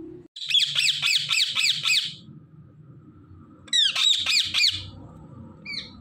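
Indian ringneck parakeets screeching: a fast run of about seven harsh calls at roughly four a second, a pause, then a shorter run of four or five, and one short call near the end.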